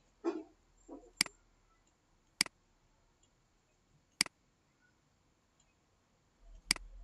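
Computer mouse clicking four times, single sharp clicks a second or two apart.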